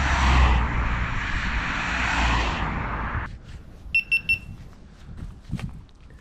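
A loud, steady rushing noise with a low rumble, cut off abruptly about three seconds in. Then come three quick, high electronic beeps, followed by footsteps on dry, littered ground.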